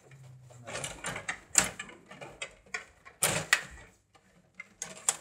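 Rod table hockey in play: the rods being pushed and twisted, and the plastic players and puck clacking against each other and the boards in irregular sharp knocks. The loudest knocks come about one and a half and three seconds in.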